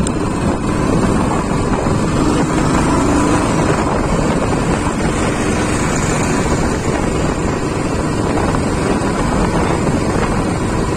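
Wind rushing over the microphone of a moving motorcycle, with the bike's engine running steadily underneath.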